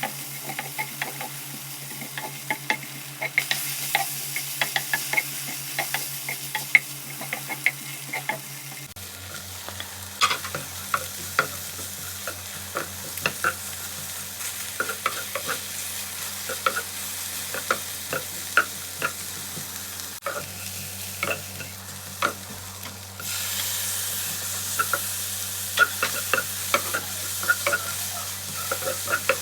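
Food sizzling as it fries in a pan, stirred with a utensil that clicks and scrapes against the pan many times. The sizzle grows louder about two-thirds of the way through.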